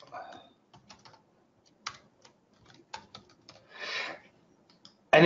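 Computer keyboard typing: irregular, scattered key clicks as a name is typed into a form. A short patch of soft noise comes about four seconds in.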